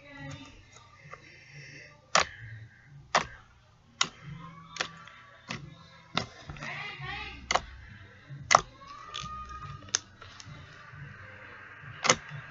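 Slime being squeezed and stretched by hand, giving sharp clicking pops at uneven intervals of about a second.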